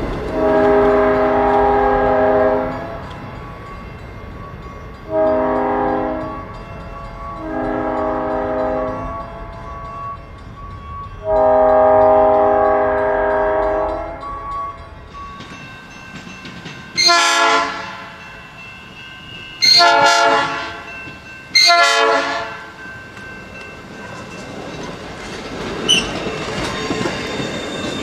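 South Shore Line electric commuter train's horn sounding four blasts as it passes and draws away: a long one, a short one, then two longer ones. Then three short, sharper horn blasts much closer, followed by the steady rumble of the cars rolling by close.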